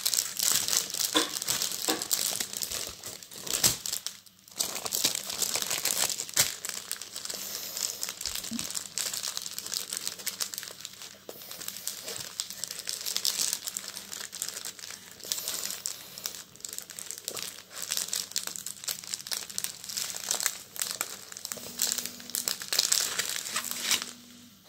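Clear plastic packaging crinkling and rustling as hands handle sealed bags of diamond-painting drills, the tool-kit zip bag and a plastic-wrapped canvas. There is a short lull about four seconds in, and the rustling stops just before the end.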